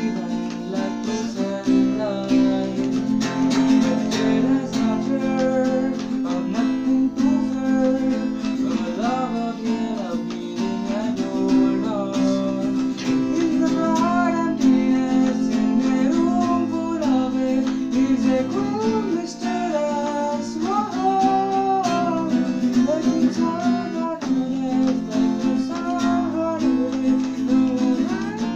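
Acoustic guitar strummed steadily as accompaniment, with a harmonica playing a melody over it in short phrases.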